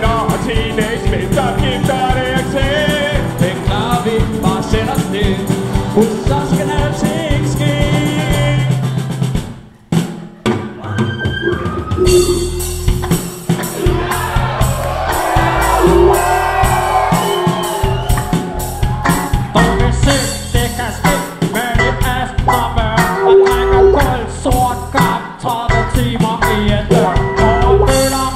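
Song with drums and singing into handheld microphones. The music drops out for about two seconds near the middle, then starts again.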